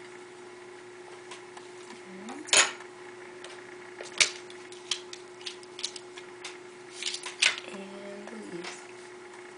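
A series of sharp clicks and taps, the two loudest about two and a half and four seconds in, followed by a run of smaller ones, over a steady low hum.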